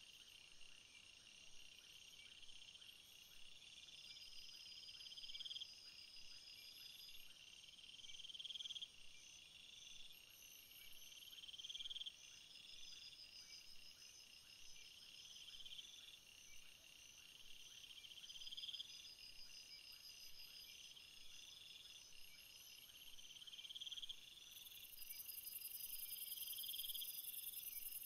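Faint chorus of insect-like chirps and trills, with a short rising trill repeating about every two seconds. A high hiss joins near the end.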